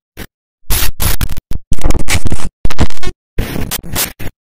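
Glitch-style logo intro sound effect: loud bursts of static-like noise chopped by abrupt silences, loudest in the middle.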